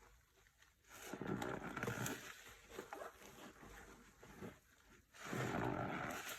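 Foam from floor-cleaning solution being squeezed and worked, squelching and squeaking in two long bursts, one about a second in and one near the end.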